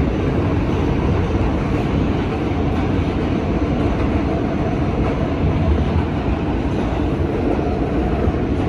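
Kawasaki R160B subway train running at speed through the tunnel: a steady, even rumble of wheels on rail and car body, heard from inside the car.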